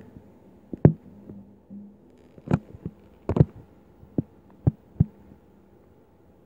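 A run of irregular sharp thumps and knocks, about seven in a few seconds, the loudest about a second in and near the middle, over a faint steady hum.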